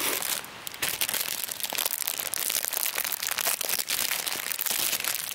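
Plastic bread wrapper crinkling and rustling as it is handled right up against the microphone.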